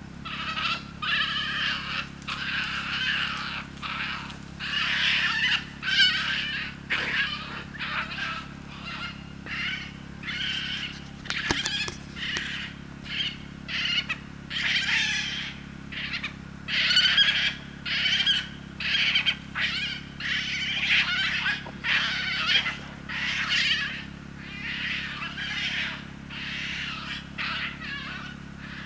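Young European badgers calling at play: a long, irregular run of high squealing calls in short bursts, one after another. A faint steady hum lies underneath.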